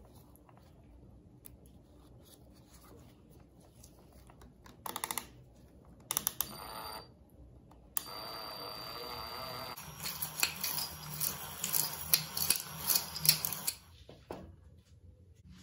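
Small plastic clicks and rattles from handling a plastic cable tie at a cordless drill's trigger. About halfway in a steady, fast ratcheting buzz starts, then a busy run of small clicks follows.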